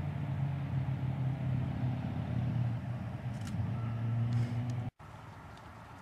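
A steady low engine hum, like a motor vehicle running, that cuts off abruptly about five seconds in, leaving a much quieter background.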